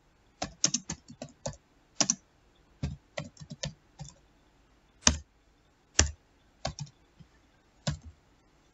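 Typing on a computer keyboard: a run of irregular key clicks for the first few seconds, then single keystrokes spaced about a second apart.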